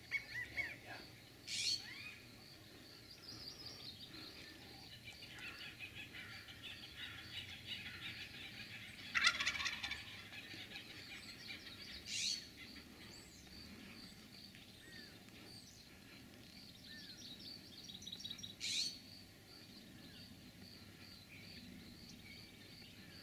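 Wild turkey gobbler gobbling. The loudest gobble comes about nine seconds in, with shorter sharp sounds a few times around it. Small birds chirp steadily in the background.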